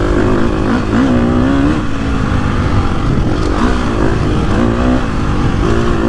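2022 Gas Gas MC350F dirt bike's 350 cc four-stroke single-cylinder engine under way, revving up and easing off again and again as the throttle is worked, its pitch rising and falling five or six times.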